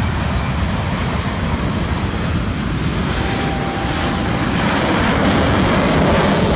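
The Blue Angels diamond of F/A-18 Hornet jets taking off with engines in afterburner, a loud dense jet noise that grows louder over the last couple of seconds as they pass.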